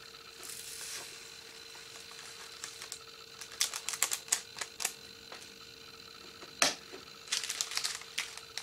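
Light plastic clicks and taps from hands handling small plastic diamond-painting drill pots and drill bags, in scattered clusters about halfway through and again near the end, with one sharper click in between.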